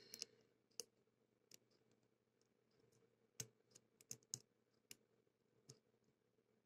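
Faint, scattered metallic clicks of a lock pick and tension wrench working the pin stack of a CITY ISEO Aditus 60 mm padlock, about nine irregular ticks with the loudest in a cluster a little past the middle.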